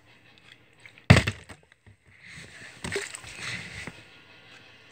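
Liquid sloshing inside a partly filled plastic soda bottle as it is swung in the hand, after a sharp thud about a second in.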